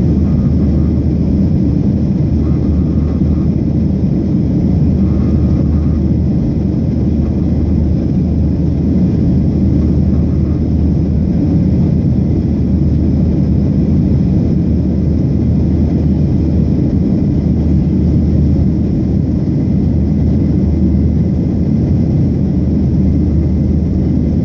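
Cabin noise inside a Boeing 737-700 climbing out after takeoff: the steady, loud, low rumble of its CFM56 turbofan engines and the airflow around the fuselage.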